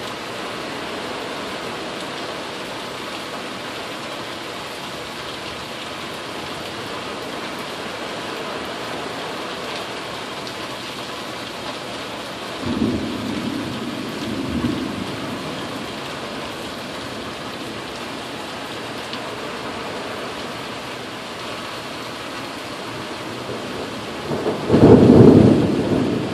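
Steady rain of a tropical storm, with a rumble of thunder about halfway through and a louder one near the end.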